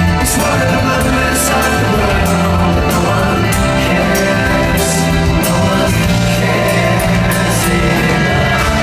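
Live rock band playing at full volume, with a steady bass line and sustained chords.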